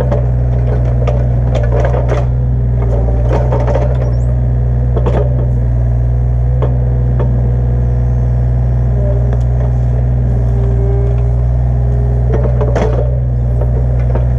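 Mini excavator's diesel engine running steadily under load, with scattered knocks and cracking as the bucket and thumb work stumps and roots out of the ground. The knocks cluster near the start and again about thirteen seconds in.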